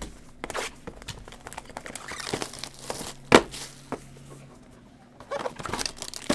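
Gloved hands handling a sealed trading-card box, with a couple of sharp knocks, the loudest about three seconds in. Then, about five seconds in, a foil pack wrapper crinkles and starts to tear open.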